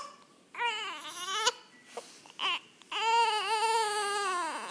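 Baby crying in a few short wails, then one long wavering cry over the second half.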